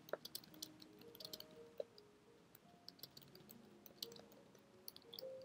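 Faint typing on a computer keyboard: soft, irregular key clicks.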